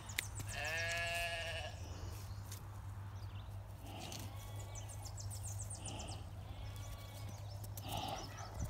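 A lamb bleating: one long, quavering bleat about half a second in, then a fainter bleat around four seconds in.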